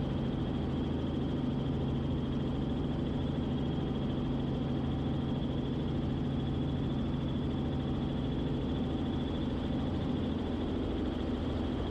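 Steady drone of a Robinson R44 Clipper II helicopter in flight, its six-cylinder piston engine and rotors heard from inside the cabin, with a constant high whine over the low hum. This is the helicopter in a climb.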